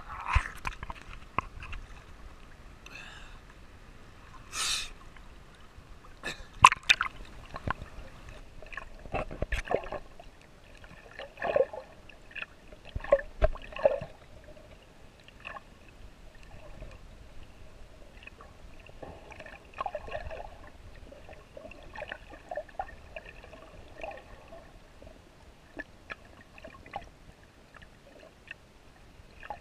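Water gurgling and sloshing around a GoPro carried while snorkeling, with irregular splashes and clicks, busier in the first half and calmer near the end.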